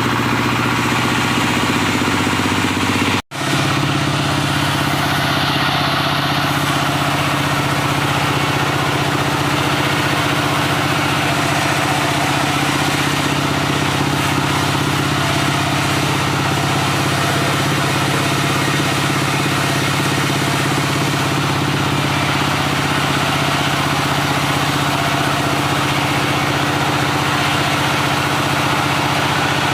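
Diesel engine driving a wood-sawing machine, running steadily at constant speed; the sound breaks off for an instant about three seconds in.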